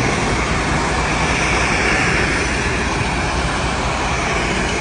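Loud, steady rushing noise from the Titan submersible as it dives under water.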